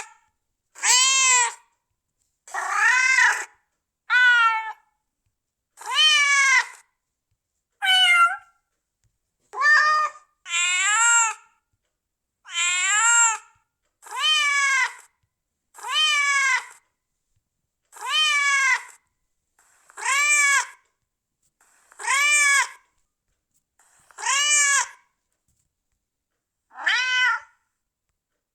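Domestic cat meowing over and over, one drawn-out meow about every two seconds. Each meow rises then falls in pitch, with silence between.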